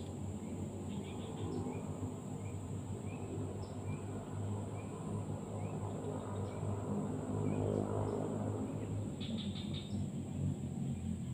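Outdoor ambience: a steady low hum under a steady high insect whine. Small chirps repeat about twice a second at first, and a quick burst of bird chirps comes near the end.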